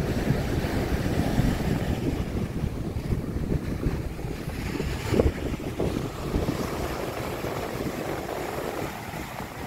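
Wind buffeting the microphone in uneven gusts over the steady wash of surf breaking on a sandy beach.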